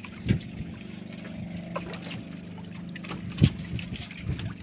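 A boat engine running with a steady low hum, with a sharp knock about three and a half seconds in and a softer one near the start.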